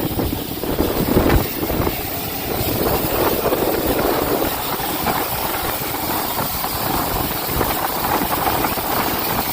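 Steady rushing noise of heavy rain and storm wind at sea aboard a fishing boat, with low rumbling thumps in the first second or so.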